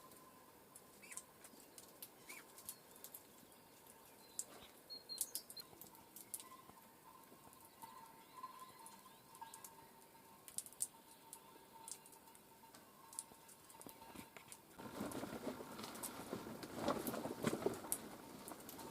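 Small birds at a seed feeder: scattered sharp pecking clicks, a brief chirp about five seconds in, and louder rustling and wing flutter in the last few seconds.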